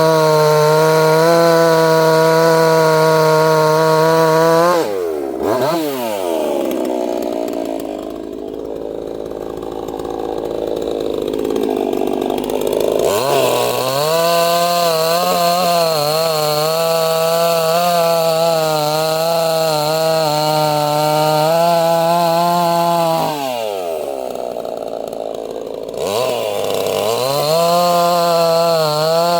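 Neotec NCS6800 68cc two-stroke chainsaw cutting wood at full throttle, its pitch wavering under load. About five seconds in it drops to idle, revs back up about thirteen seconds in, drops to idle again after about twenty-three seconds, and revs up once more near the end.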